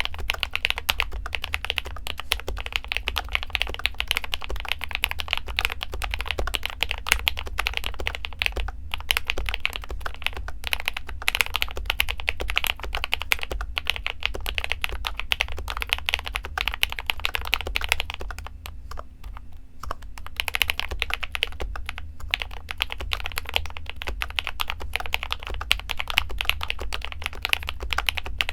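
Fast continuous typing on a modded RK61 Pro mechanical keyboard, with lubed AKKO Rose Red linear switches, PBT Cherry-profile keycaps and foam and tempest mods, giving a thocky sound. Dense keystrokes clack without letup, with a few brief pauses.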